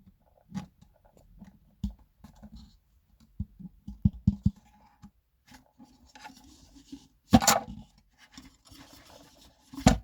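Parts of a disassembled subwoofer being handled: scattered light knocks, clicks and scrapes, with a louder knock about seven seconds in and another near the end.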